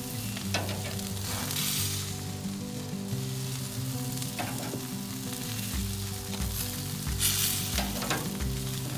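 Bacon-wrapped duck poppers sizzling on a grill in bacon grease, with a few sharp clicks. Background music with stepping low notes and a regular beat that comes in about six seconds in.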